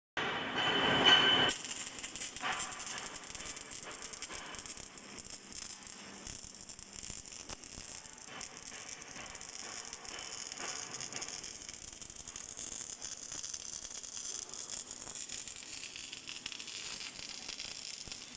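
A steady, dense crackling hiss, after a louder burst of sound in the first second and a half.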